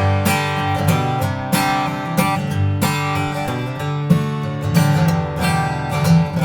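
Martin X Series Special Dreadnought acoustic guitar, with a koa-pattern high-pressure laminate body, being strummed: ringing chords at about two strums a second.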